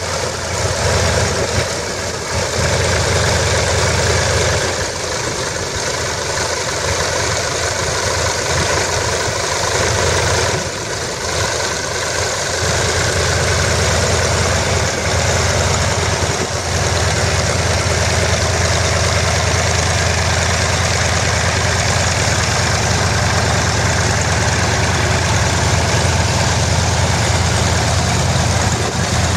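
Small radial engine of a Flitzer biplane idling on the ground with its propeller turning, running steadily, with a brief slight dip in level about ten seconds in.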